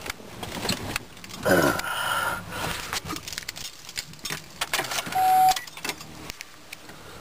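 Keys jangling and clicking at the ignition of a 2004 Chevrolet Trailblazer, with a brief louder noise about a second and a half in. About five seconds in, a single short dashboard chime sounds as the ignition is switched on; the engine is not yet running.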